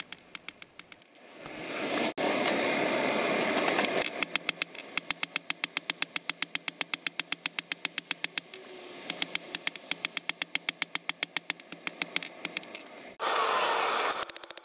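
Hand hammer forging a hot bar on a Chinese cast-iron anvil whose face has been built up with hardfacing weld, struck about four times a second with a metallic ring. The blows come in two runs with a short break in the middle. A rushing noise comes before the blows and again briefly near the end.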